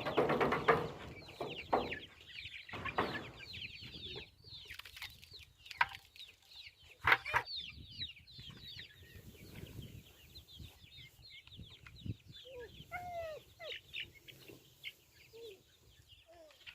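Many young chicks peeping over and over in a pen, a dense stream of rapid, high, falling cheeps. A few knocks come in the first half, and some lower single calls come from about 12 s on.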